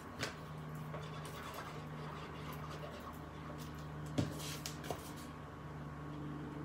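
Faint handling of cardstock: light scratches and rustles as liquid glue is drawn onto a paper panel and the panel is pressed onto the box, with one small tap about four seconds in. A low steady hum runs underneath.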